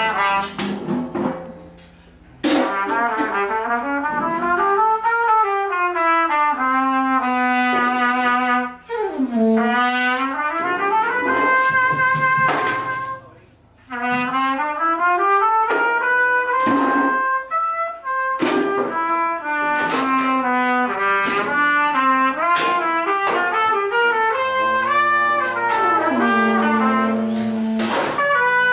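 A brass instrument playing a melodic jazz line in phrases, its pitch rising and falling, with two short breaks.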